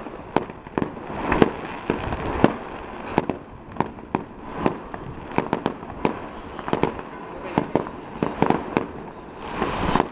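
Fireworks going off: a rapid, irregular string of sharp bangs and cracks, several a second, with the loudest bangs about one and a half and two and a half seconds in.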